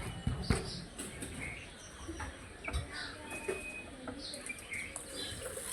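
Birds chirping in many short, scattered calls, with a few dull thumps under them.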